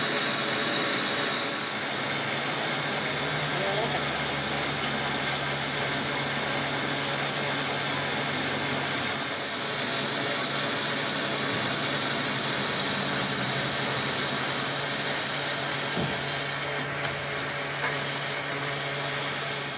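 Manual lathe running steadily, turning the steel shaft end of a sugarcane crusher roller, with the cutting tool working the metal. The motor gives a constant low hum under a steady high-pitched cutting whine.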